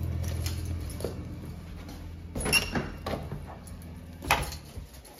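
Two sharp clicks, each with a brief metallic ring, about two seconds apart, among handling noise, while a low steady hum fades away.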